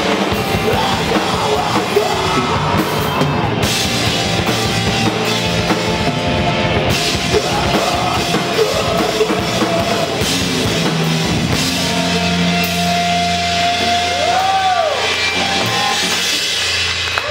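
Live rock band playing loudly: drum kit, bass and electric guitar with shouted vocals. In the last few seconds the band holds a sustained chord, with one short bending note.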